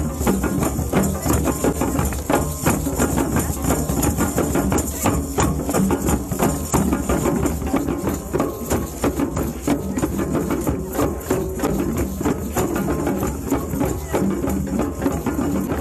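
Music of fast, dense drumming with jingling tambourine-like shakers, steady throughout, over a sustained low tone.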